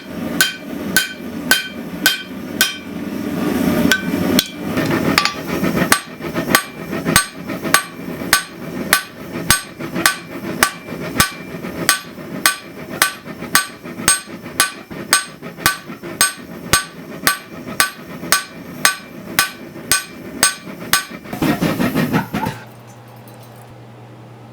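Hammer striking hot damascus steel on an anvil, about two blows a second, each with a short metallic ring. The blows stop about 21 seconds in.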